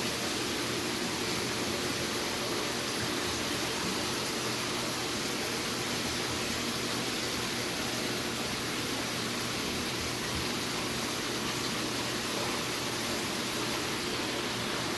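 Steady, even hiss of aquarium water circulating through the tank's filtration, with no change or separate events.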